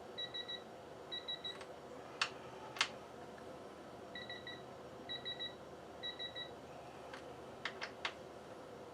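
Electronic beeping in quick bursts of three or four short high beeps, repeating about once a second with a pause partway through. There are a few sharp clicks from a wrench on the fork pinch bolts, two near the middle and three in quick succession near the end.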